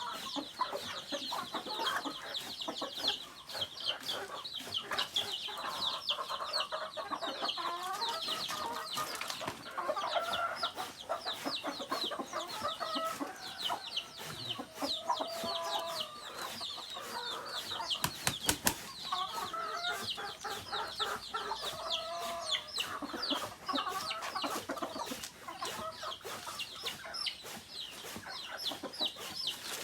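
A flock of native chickens clucking, over a dense, continuous stream of high, rapid chirping. A short, sharp knock sounds about 18 seconds in.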